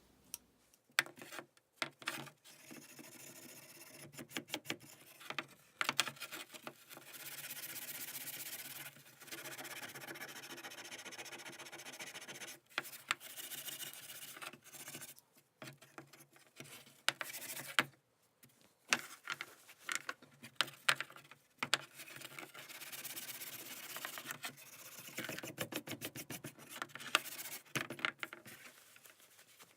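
Old steel pliers being scrubbed by hand to take off rust: stretches of rasping rubbing a few seconds long, broken by sharp clicks and knocks as the tool is handled.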